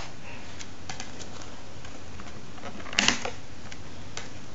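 Light plastic clicks and taps as Blu-ray discs are unclipped from the hubs of a plastic disc case, with a louder cluster of clicks about three seconds in, over a steady hiss.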